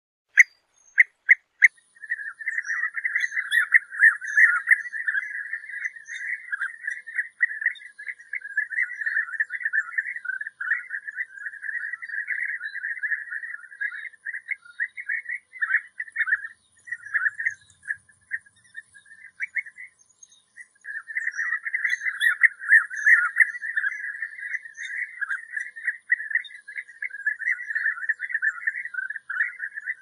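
European bee-eater calling: a few separate short calls at the start, then a dense, almost unbroken stream of calls, with a brief pause about two-thirds of the way through.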